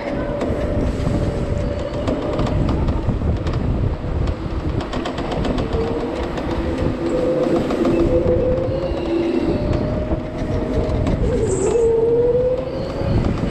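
OTL Storm electric go-kart's motor whining while driving, its pitch dipping and climbing with speed through the corners, over a steady low rumble of the kart's tyres and chassis on the track.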